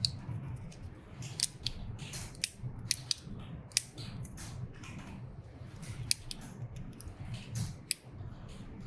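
Irregular small sharp plastic clicks and handling noises from an ink damper, its tube fittings and an ink syringe being detached and fitted, over a steady low hum.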